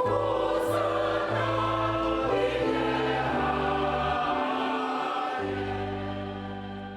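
Choral music: a choir singing slow, held chords over a bass line that moves from note to note, fading out near the end.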